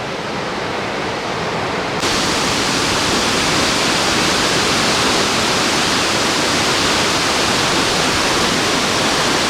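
Waterfall rushing steadily, a dense roar of churning water. About two seconds in it suddenly becomes louder and hissier.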